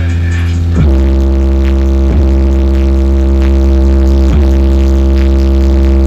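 VW Saveiro's aftermarket car sound system playing music at high volume, with heavy sustained bass notes that change pitch every second or two.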